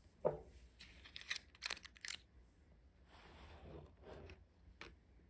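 Faint handling noises as a glass ink bottle is fetched and handled. There is a sharp knock about a quarter second in, then a cluster of clicks and rustling around the second second, a softer rustle about three seconds in, and a last click near the end.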